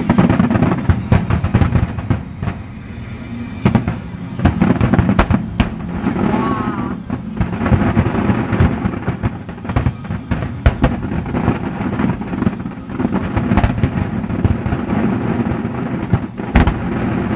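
Fireworks display: a dense, continuous barrage of shells bursting with sharp bangs and crackle, with music playing underneath.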